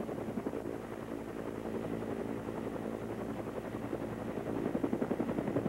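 Helicopter's rotor and engine running steadily, heard from aboard, with a fast, even pulsing chop from the blades.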